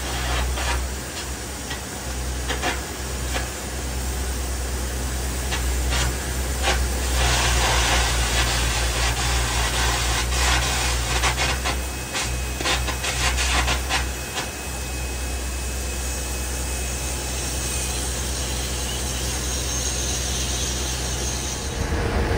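Shop metalworking noise: a steady low hum under a continuous hiss full of sharp crackles, heaviest in the middle, the sound of metal being cut, gouged or ground.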